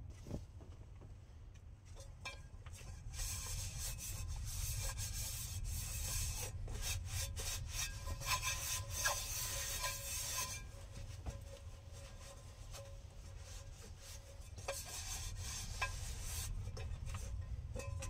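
Dishes being scrubbed by hand: a rough rubbing, scraping noise that goes on for about seven seconds, pauses, and starts again near the end, with a few light knocks of dishware.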